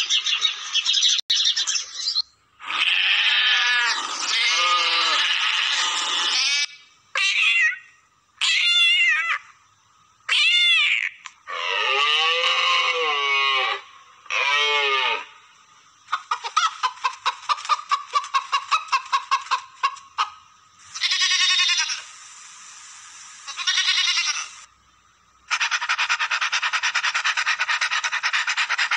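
A string of different animal calls cut one after another, each lasting one to four seconds with short gaps between: budgerigar chatter at the start, then livestock and pet calls, some swooping up and down in pitch, others fast and trembling.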